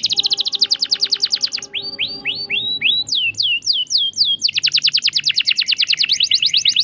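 Male domestic canary singing: series of downward-sweeping whistled notes a few per second, alternating with very fast rolls of rapid repeated notes.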